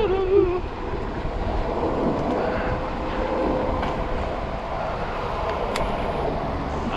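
Steady low rumble of vehicle and street noise while riding, with a faint steady hum and one sharp click about six seconds in.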